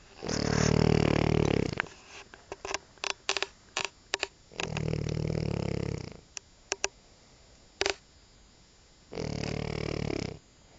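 French bulldog snoring: three long, rattling snores about four to five seconds apart, with short clicking sounds between them.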